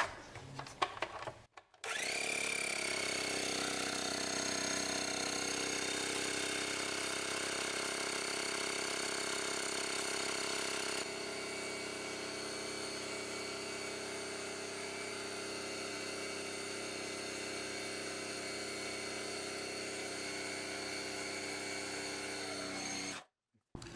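Shop air hose blowing compressed air over a speaker cone: a steady, even sound that drops a little in level about halfway through and then cuts off suddenly.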